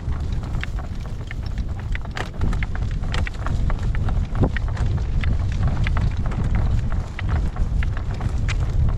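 Strong wind buffeting the microphone in a steady low rumble, over a horse trotting, with its hoof and tack clicks at about two or three a second.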